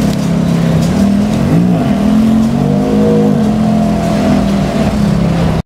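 Ferrari F430's V8 running at a low idle with two quick throttle blips, the engine note rising and falling about one and a half seconds in and again around three seconds in.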